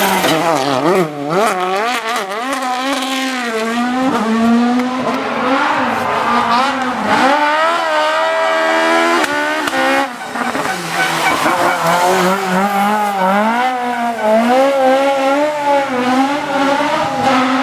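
Rally car engines being driven hard on a special stage, the engine note repeatedly climbing in pitch under acceleration and dropping on gear changes and lifts, with a short break about ten seconds in.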